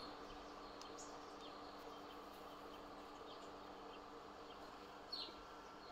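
Quiet background: a steady faint hum with a couple of brief, faint high bird chirps.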